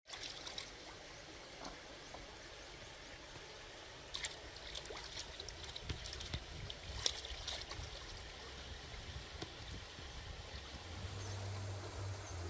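Shallow stream running over rocks, a steady rush of water, with a few small clicks and taps in the middle and a low hum coming in near the end.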